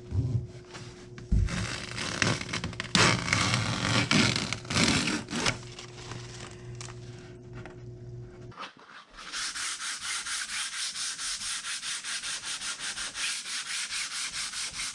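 Rustling and handling noise as hands smooth release fabric over the fresh fiberglass layup on the boat hull. Then, after a cut, a hand sanding block rubs the fiberglass hull in quick, even back-and-forth strokes, about six a second.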